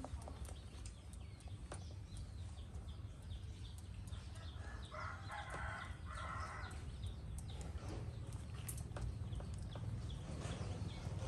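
A macaque grooming a man's hair: a scatter of small clicks and picking sounds over a steady low rumble, with a brief louder call-like sound about five seconds in.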